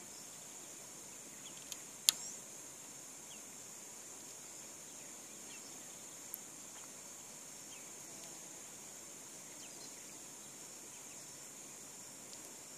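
Steady high-pitched drone of insects, with a few faint short bird chirps scattered through it. A sharp click sounds about two seconds in, and a softer one at about six seconds.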